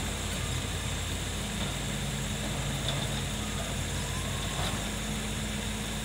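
Diesel engine of a Caterpillar hydraulic excavator running steadily as a low hum, its note shifting slightly about two seconds in.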